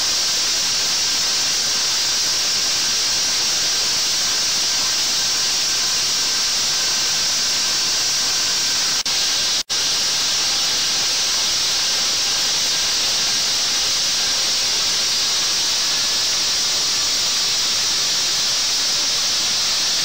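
Zephyr ZT4000 positive feed drill's 1.75 horsepower air motor running while drilling, a loud, steady hiss of air with a faint whine in it. The sound breaks off for a split second about halfway through.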